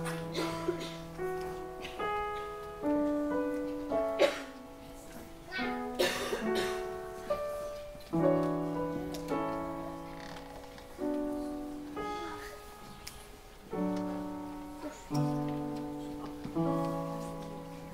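Piano playing slow chords, a new chord roughly every second, each struck and left to ring and fade.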